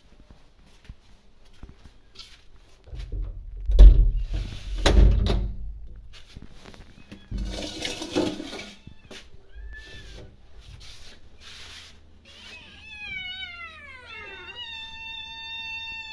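Two heavy thumps about four and five seconds in, with some clattering around eight seconds, then a kitten meowing near the end: two long meows, the first sliding down in pitch, the second held steady.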